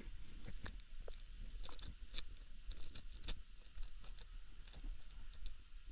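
Footsteps on brick paving, about two steps a second, with a low rumble of wind or handling on the microphone.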